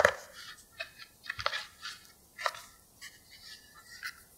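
Hands handling a rolled sheet of tart dough and easing it into a tart tin on a wooden board: soft pats, rubs and rustles, with a few sharper knocks, the first right at the start and others about one and a half and two and a half seconds in.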